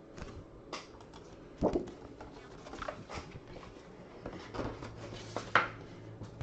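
Rustling and light knocks of items being handled on a table, with two louder knocks, one about a second and a half in and one near the end.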